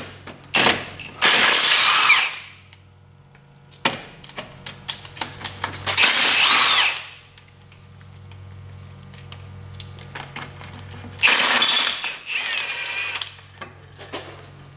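Cordless impact wrench run on bolts in several bursts, each spinning up and down: a short one and a longer one about a second in, another about six seconds in, and two more near the end. Light metal clinks come between the bursts.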